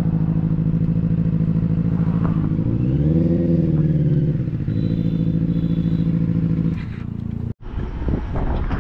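Benelli 600i's inline-four engine running at low revs, its pitch rising and falling once about three seconds in, then cutting off about seven seconds in.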